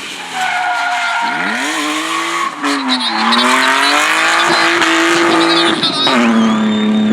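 Drift car engine revving hard through a slide, with tyres squealing. The revs climb about a second in, waver, and drop to a lower steady note about six seconds in.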